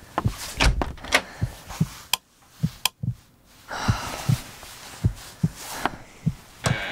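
A door being handled in a small room: a run of sharp clicks and low thuds, with a short rustling hiss about four seconds in.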